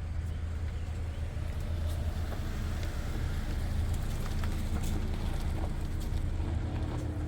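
Steady low hum with an even background hiss and a few faint, light clicks.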